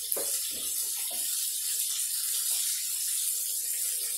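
Kitchen sink tap running while hands are washed under it, with a few small knocks in the first second or so.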